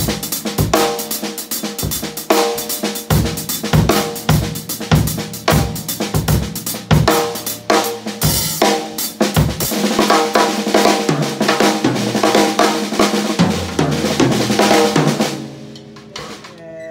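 Drum kit groove: steady hi-hat strokes with snare ghost notes and bass drum. The playing stops near the end and the kit rings out briefly.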